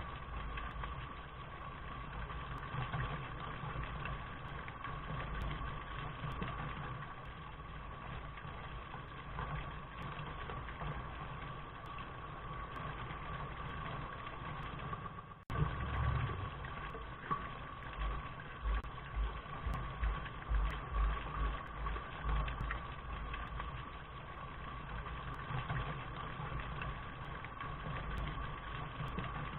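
Steady rain noise, an even hiss with an uneven low rumble beneath it. The sound drops out for a split second about halfway through, then carries on.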